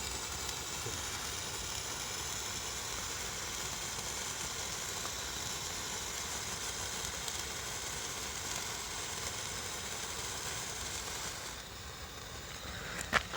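A hand-held firework spraying sparks with a steady hiss that cuts off suddenly about eleven seconds in as it burns out, followed by a few sharp clicks.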